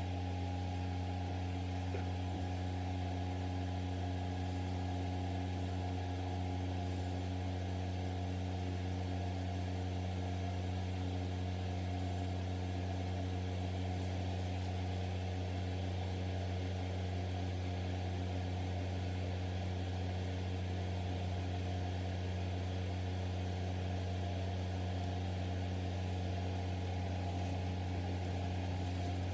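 Steady low machine hum with several steady tones and a light hiss, unchanging.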